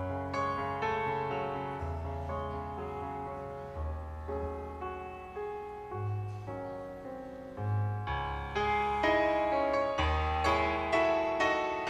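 Piano playing a slow instrumental introduction to a song: struck chords and melody notes over held bass notes, growing fuller and louder about eight seconds in.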